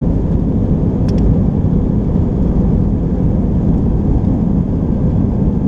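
Cabin noise inside an Airbus A320 airliner on the ground: a loud, steady low rumble of the engines and airframe, with a brief click about a second in.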